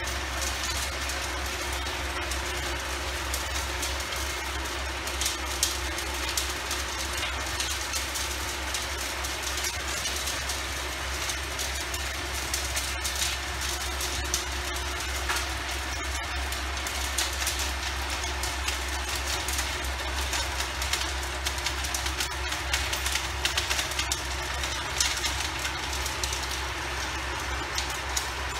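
Antonio Carraro TRX 9900 tractor running with its rotavator tilling soil: a steady low engine sound with continual irregular clattering from the working tiller.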